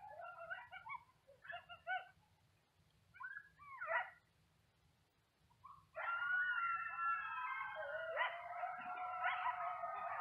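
A pack of coyotes yipping in short broken calls, then from about six seconds in, howling together in long overlapping gliding calls.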